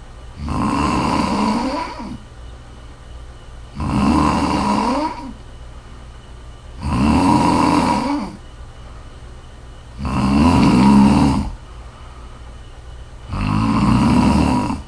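A woman snoring in slow, regular breaths: five loud snores of about a second and a half each, one roughly every three seconds, with quieter breathing between.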